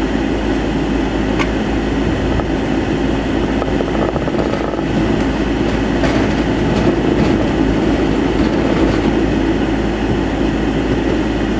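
Steady running noise of a vehicle pushing a homemade snow plow through snow, heard from inside the cab, with a faint click about a second and a half in.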